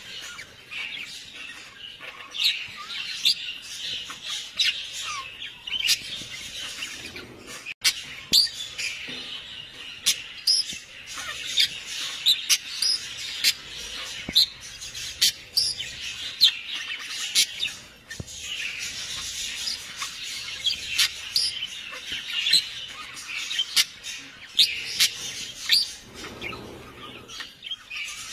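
Many birds chirping and squawking together, a dense run of short, overlapping calls.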